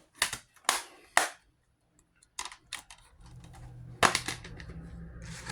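Plastic DVD case being handled: three sharp snaps in the first second and a half, then lighter clicks and another sharp clack about four seconds in.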